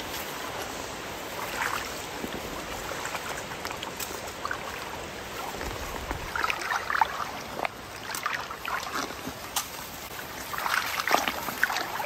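Creek water running steadily, with intermittent rustling and crackling in dry leaves and grass that becomes busier in the second half.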